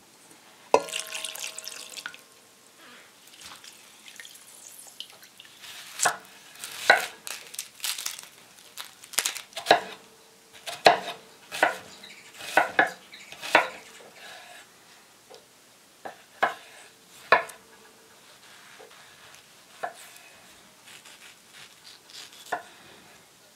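A kitchen knife chopping red onion on a wooden cutting board: sharp, irregular chops about one or two a second, with lighter knife cuts through mango near the end. About a second in, one sharp knock on a stainless steel mixing bowl rings briefly.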